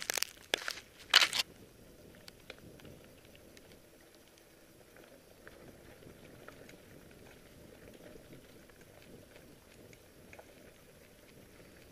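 Mountain bike riding over a dirt forest trail: a few loud knocks and rattles in the first second and a half as it bounces over rough ground, then faint steady tyre noise on the dirt with small scattered ticks of grit and gravel.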